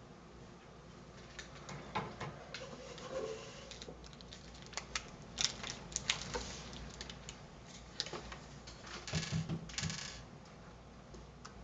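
Irregular clicks, taps and short rattles of parts and cables being handled in and around a computer case, with a few brief rustles.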